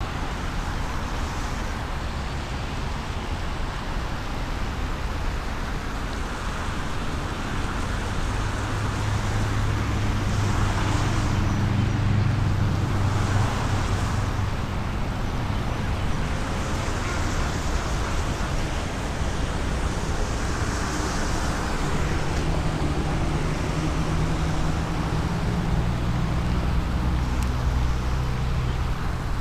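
Steady low rumbling noise with a hiss over it, swelling about a third of the way in and again later.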